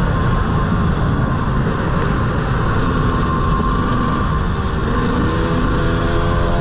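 KTM two-stroke dirt bike engine running while riding along, with heavy wind rumble on the microphone; the engine note climbs slightly near the end.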